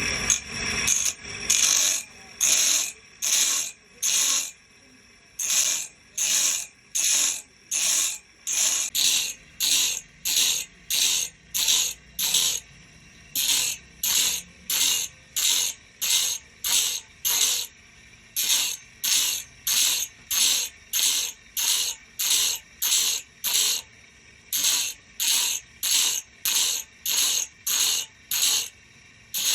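Saw blade teeth being worked by hand, most likely filed: short rasping metal strokes repeat about twice a second, with a few brief pauses.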